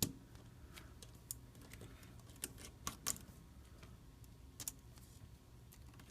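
Faint, irregular small clicks and ticks of a precision screwdriver backing out the tiny screws inside an iPhone 5c and of the screws being set down one by one.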